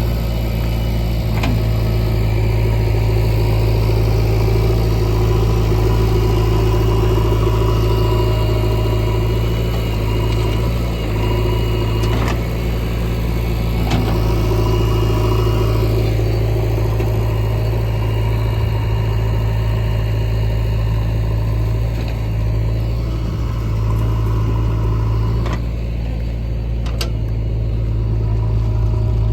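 Backhoe loader's diesel engine running steadily, with a few sharp knocks now and then.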